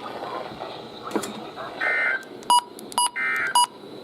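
Emergency Alert System digital header: two short bursts of warbling data tones about a second apart, mixed with three sharp electronic beeps, announcing a new alert.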